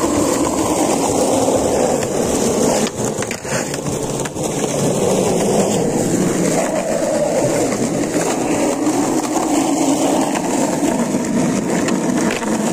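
Skateboard wheels rolling steadily over rough concrete, with a couple of brief knocks about three and four seconds in.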